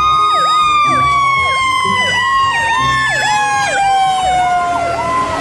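Fire truck sirens: one long wail slides steadily down in pitch, while a second siren yelps rapidly over it, about twice a second.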